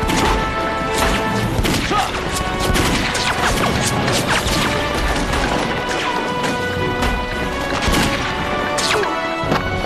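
Rifle gunfire and impacts of a battle, many irregular sharp shots, over steady dramatic background music.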